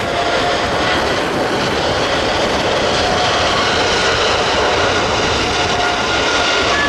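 Engines of a wide-body twin-engine jet airliner running loud and steady, a rushing jet noise with a faint steady whine.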